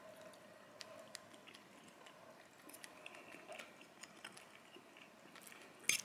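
Budgerigar pecking and nibbling at cooked pasta in a small ceramic bowl: faint scattered beak clicks and small chewing sounds, with one louder click near the end.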